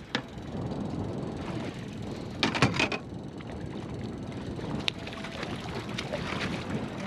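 A hooked Lahontan cutthroat trout splashing and thrashing at the surface beside the boat as it is played to the net. The loudest moment is a short burst of splashes and knocks about two and a half seconds in. The boat's motor runs steadily underneath.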